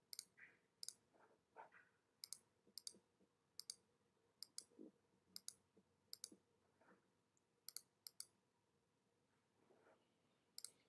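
Faint, irregular clicks of a computer being operated by hand, about a dozen scattered over several seconds.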